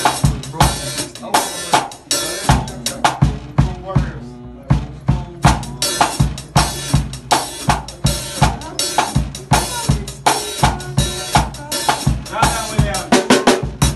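Drum kit playing a mento groove, the Jamaican folk rhythm, with a steady pattern of kick drum, snare and rim strikes; the bass drum carries the part a rumba box would play.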